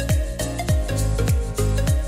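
Background music with a steady beat: a deep thump about twice a second under sustained tones.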